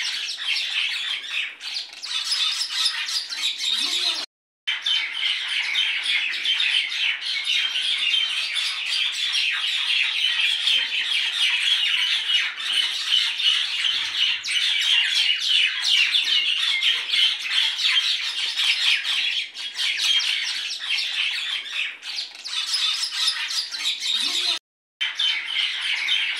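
A flock of birds chirping and squawking continuously in a dense chatter, cutting out briefly twice.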